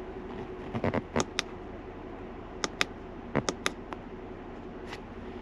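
Sharp clicks of the push buttons on an EVC throttle controller being pressed, in a few quick groups, over the steady hum of a 2021 Jeep Wrangler idling.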